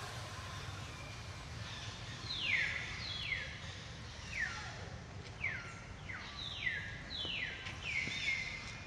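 Baby monkey giving a run of about ten high, thin calls, each sliding down in pitch, starting about two seconds in, over a steady low background hum.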